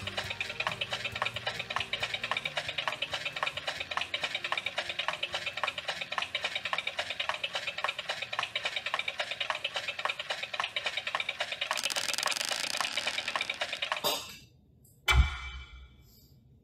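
Rapid, even clicking and tapping, several taps a second: the fingers of a crawling severed hand scuttling along, as a horror sound effect. It fades about fourteen seconds in, and a second later there is a single loud, deep thump as the hand lands on the bar top.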